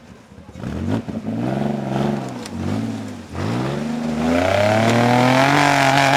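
Lifted off-road 4x4's engine revved in several short bursts, then pushed up and held at high revs as the truck claws up out of a snowy ditch, its wheels spinning and throwing snow.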